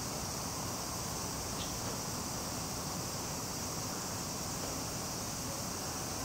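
Steady, unbroken high-pitched buzzing of an insect chorus, with a low outdoor rumble underneath.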